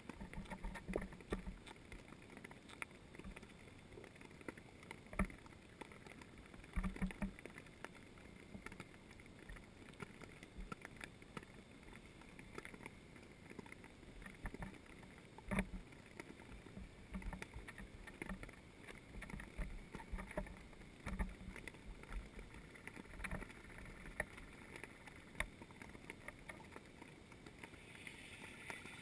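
Underwater ambience picked up by a submerged camera: faint steady water noise with scattered soft clicks and knocks.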